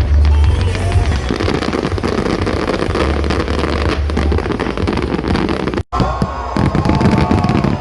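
Aerial fireworks display: dense crackling over heavy, continuous low booms. The sound cuts out for an instant near six seconds, and after that whistling glides join the crackle.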